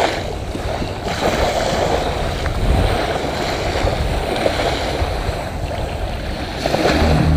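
Small waves lapping at a sandy shore, with wind buffeting the microphone in a steady low rumble.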